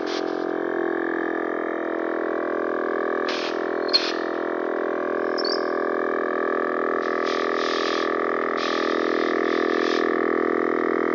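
Viair 450P portable 12-volt air compressor running with a steady, quiet hum as it builds pressure into its hose and gauge, with a few short hisses now and then.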